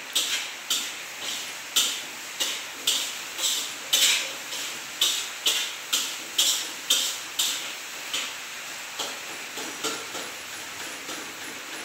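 Metal spatula striking and scraping a wok while stir-frying fried rice, about two clanks a second, each ringing briefly, growing fainter after about eight seconds.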